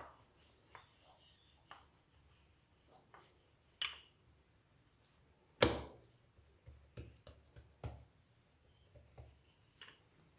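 Pizza dough being rolled out with a rolling pin: scattered faint taps and knocks of the pin and dough on the board, with one louder knock about halfway through.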